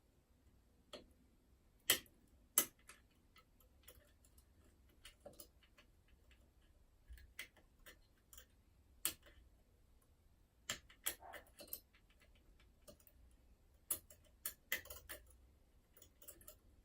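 Faint, irregular metallic clicks and ticks of a curtain pick and tension wire working the levers of a Union Strongbolt 5-lever mortice lock, with the two loudest clicks about two seconds in and small flurries of clicks later on.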